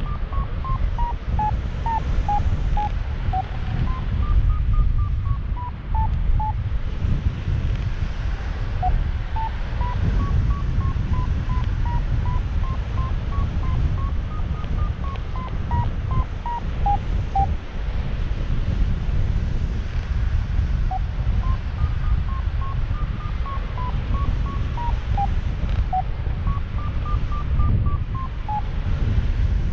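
Wind rushing over the microphone in flight under a paraglider, with a variometer beeping its climb tone: a string of short beeps that rise and fall in pitch as the lift changes, pausing now and then.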